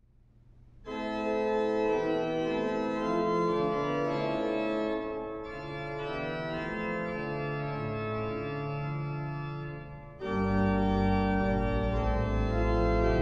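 Church organ playing sustained chords. A soft low note swells at the start, the full chord comes in about a second in, and about ten seconds in the sound grows louder as a deep pedal bass joins.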